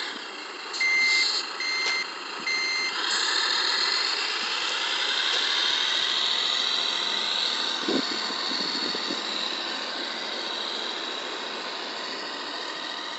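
Electronic sound module of an RC Mercedes-Benz SK 3544 8x8 dump truck: three short beeps in the first three seconds, then the simulated truck engine revving up and running steadily as the loaded truck drives off. A brief knock about eight seconds in.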